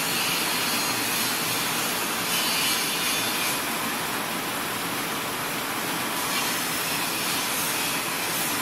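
Buckwheat hulling machine running steadily under load while grain is fed into its hopper: an even mechanical whir with a hiss.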